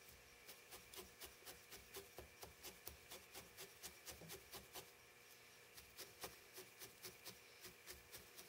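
Faint, rapid ticking of a barbed felting needle in a pen-style holder stabbing repeatedly into loose wool on a fox's chin, about four jabs a second, with a brief pause just past the middle.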